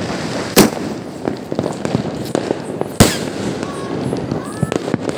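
Diwali firecrackers and fireworks going off: a continuous crackle of small pops, broken by two loud bangs, one about half a second in and one about three seconds in.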